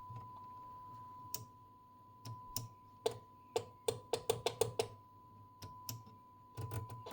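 Steady 1 kHz test tone playing from the Storno TS-G13 test set's loudspeaker, with a run of sharp clicks, about three or four a second at their quickest, from its rotary switches being turned.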